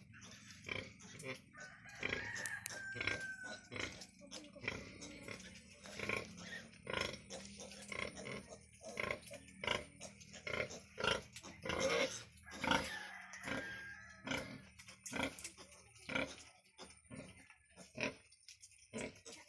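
A sow and her suckling piglets at a nursing: a busy, irregular run of short pig grunts, with a few thin high squeaks about two to three seconds in.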